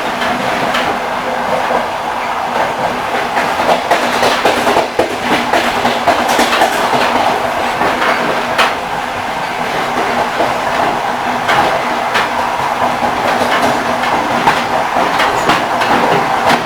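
Railway carriage wheels knocking over rail joints, the clickety-clack of a moving train, over a steady rolling rumble.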